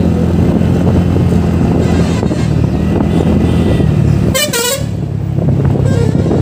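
Steady drone of a TVS NTorq 125 scooter's single-cylinder engine cruising at about 46 km/h, mixed with wind and road noise. About four and a half seconds in, a vehicle horn gives one short, wavering blast.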